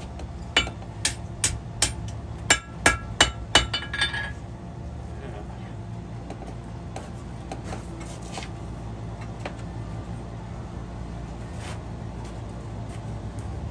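Blacksmith's hammer striking steel on an anvil: a quick run of about nine ringing blows with a short break in the middle, stopping about four seconds in.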